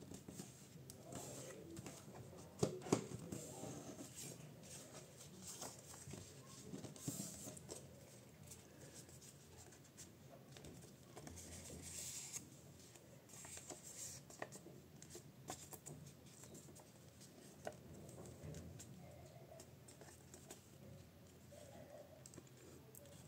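A sheet of A4 printer paper being folded and handled into a paper airplane: rustling and crinkling, with sharp crackles as folds are creased, the loudest about three seconds in.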